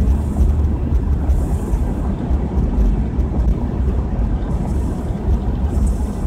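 Steady low rumble of a car's road and engine noise heard inside the cabin while driving.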